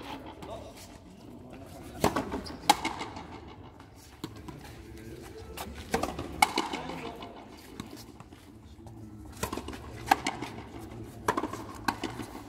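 Frontenis rally: sharp cracks of the rubber ball off the rackets and against the front wall, coming mostly in pairs about half a second apart, four times over.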